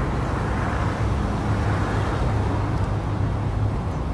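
Steady low outdoor background rumble, an even urban noise with no distinct events.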